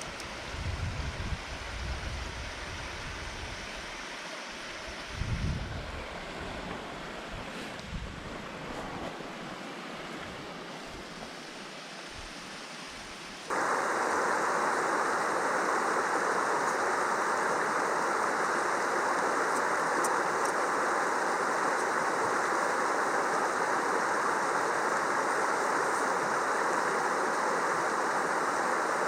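Wind gusts buffeting the microphone over a fainter rush of water, then an abrupt change about halfway through to a mountain stream rushing steadily and louder.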